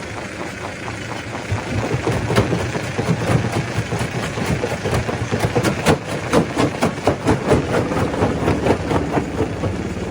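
Stone crusher machine running with a steady mechanical drone, and rocks knocking and cracking inside it in rapid, irregular strikes. The strikes start about a second and a half in and thin out near the end.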